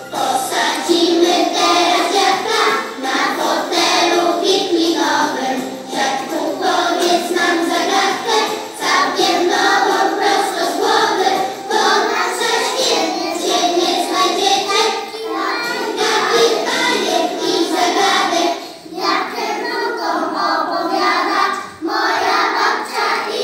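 A class of young children singing a song together in unison, with short breaks between lines.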